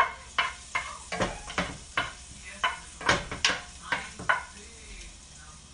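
A cooking utensil stirring garlic in a pan of butter and oil, knocking and scraping against the pan about three times a second, with a low sizzle underneath. The clacks stop about four and a half seconds in.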